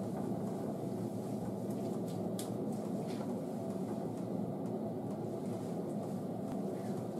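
Steady low mechanical hum, even in level, with a few faint light clicks about two to three seconds in.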